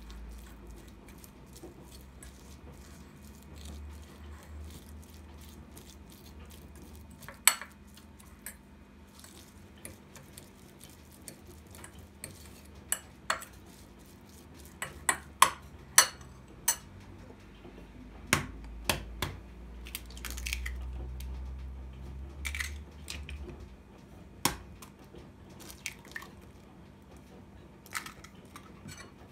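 Scattered clinks and knocks of crockery and cutlery, cups and dishes being set down and handled, over a faint steady hum, with a low rumble twice.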